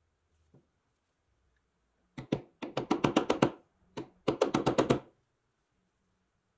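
A couple of sharp knocks, then two quick runs of knocks or taps, about ten a second, each run lasting under a second with a short pause between.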